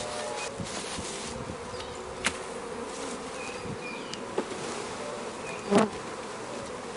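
A mass of honey bees buzzing steadily as a package of bees is dumped into the hive, with a few sharp knocks from the package, the loudest near the end.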